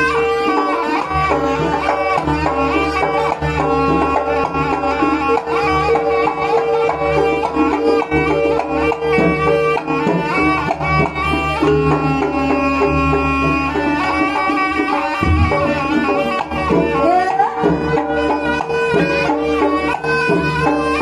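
Live East Javanese jaranan accompaniment music: hand drums playing steadily under a reedy wind-instrument melody, over a continuous held tone.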